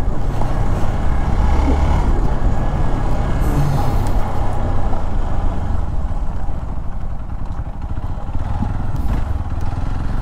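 Motorcycle engine running steadily as the bike is ridden along, with a constant low rumble and the road noise of the moving bike.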